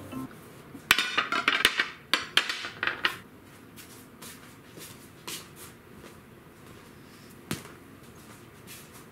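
Plates, dishes and chopsticks being set down on a glass tabletop: a quick clatter of clinks and knocks for about two seconds, then a few single knocks.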